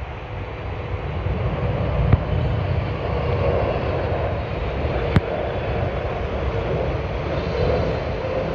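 British Airways Boeing 777-300ER on low final approach, its twin GE90 turbofans making a rumbling jet noise that grows steadily louder as it comes overhead, with a steady droning tone running through it. Two short sharp clicks sound about two and five seconds in.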